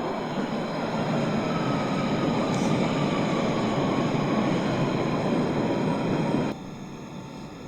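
London Underground Central line 1992-stock tube train running: a loud steady rush of wheel and running noise with a faint whine slowly falling in pitch. The sound cuts off suddenly about six and a half seconds in, leaving a quieter steady hum.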